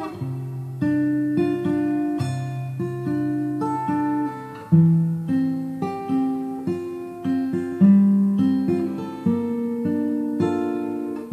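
Background music: a guitar playing picked notes, each note starting sharply and fading.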